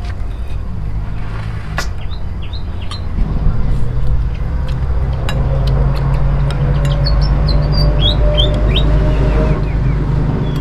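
An engine running steadily as a low rumble, getting louder about three seconds in, with a small bird chirping in short runs of quick calls.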